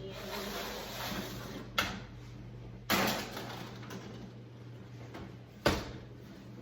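Kitchen clatter: three sharp knocks and bangs of doors and things being handled, the one about three seconds in the loudest with a short ring-out, over a shuffle of handling.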